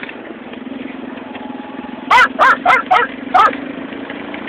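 A dog barking five times in quick succession, over the steady drone of the moving vehicle's engine and road noise.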